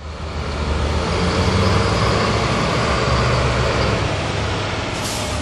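Steady motor vehicle noise, engines running with a low rumble under a broad traffic hiss, fading in at the start.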